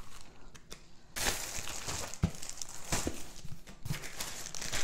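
Plastic packaging crinkling and rustling as art supplies are handled and unpacked by hand, starting about a second in, with a few light knocks and a sharp knock at the very end.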